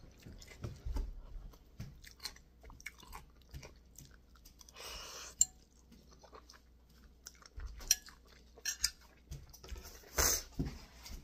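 Close-up eating sounds: a person chewing and slurping glass noodles from a bowl of boat noodle soup, with a long slurp near the middle and small clinks of a metal spoon and fork against the bowl.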